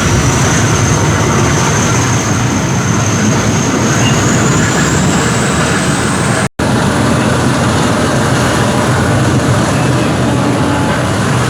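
Heritage train under way, heard on board: the steady low drone of a Class 37 diesel locomotive's English Electric V12 engine over wheel-and-rail running noise, with a high steady whine that rises slightly about halfway. The sound breaks off for an instant just past halfway.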